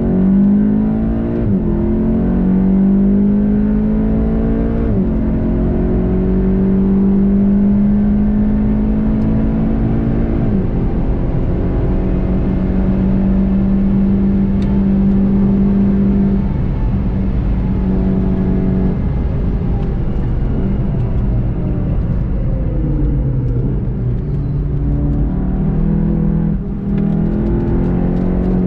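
Volkswagen Golf 7.5 GTI TCR's turbocharged 2.0-litre four-cylinder engine under hard acceleration, heard onboard. Its pitch climbs through the gears, dropping back at upshifts about 1.5, 5 and 10 seconds in, then holds high at full speed. Past the middle the driver lifts off and the note falls, with downshifts as the car brakes for a corner.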